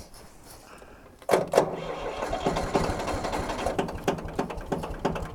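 Tractor engine being cranked over by its starter in an attempt to start it. It kicks in suddenly about a second in, with a steady hum under an even chugging rhythm of about four to five beats a second.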